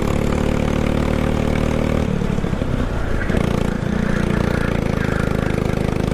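Go-kart engine running at steady high revs. About two seconds in, the revs drop and waver for a second or so, then climb back to a steady note.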